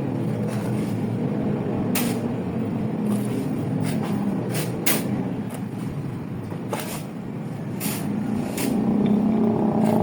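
Steady low mechanical rumble, with sharp clicks or taps scattered through it about once a second.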